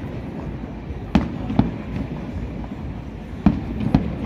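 Fireworks display going off: two pairs of sharp bangs about half a second apart, one pair about a second in and another near the end, over a steady low rumble.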